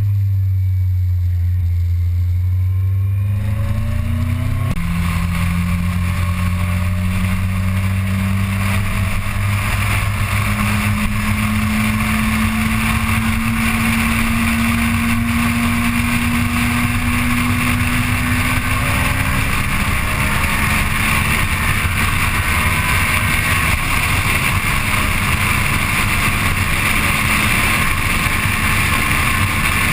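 Motorcycle engine heard from on board while riding. The revs climb, fall sharply with an upshift about five seconds in, then rise slowly and hold steady. Wind noise on the microphone grows as the bike picks up speed.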